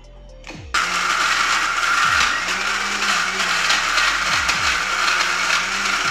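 Electric mixer grinder (Indian mixie) switching on about a second in and grinding a coarse chutney mix of roasted chillies, spices, garlic, onion and tamarind in its steel jar: a loud, steady whirring grind.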